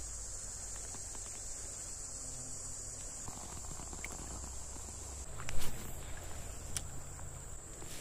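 Steady high-pitched insect chorus droning from the creekside trees, with a short loud burst of noise about five and a half seconds in.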